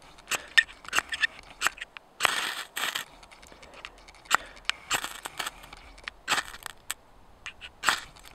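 A metal striker scraped again and again down a ferro rod set into a chunk of chaga fungus, throwing sparks into a hole in the chaga to try to catch an ember. The strikes are short, sharp rasps, with two longer scrapes a little over two seconds in.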